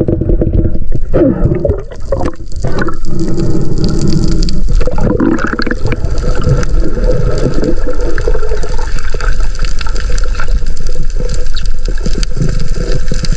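Underwater camera audio: water moving and gurgling around the camera housing as a diver swims, with a few wavering sounds in the first three seconds, then a steady rushing noise.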